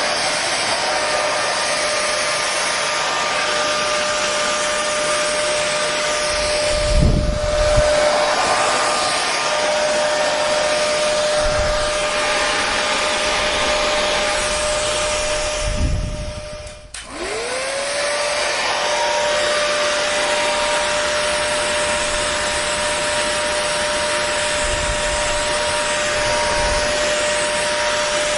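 Hair dryer running steadily: a rush of air under a constant whirring tone from its motor. About 17 seconds in, it briefly cuts out and the motor spins back up with a rising whine. There are a couple of low thumps earlier.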